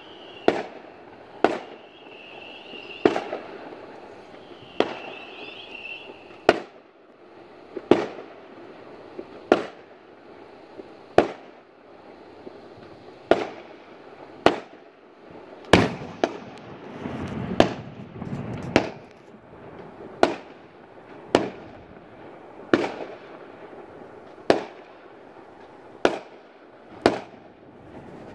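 Fireworks display: aerial shells bursting in a steady run of sharp bangs about one a second, with crackling between the bangs.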